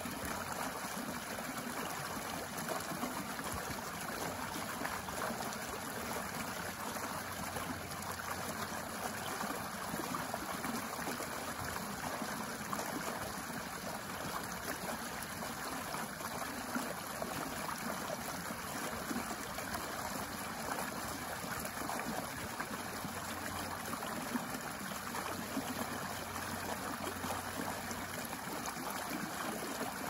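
Small shallow stream flowing steadily over a low drop into a pool: continuous trickling and splashing water.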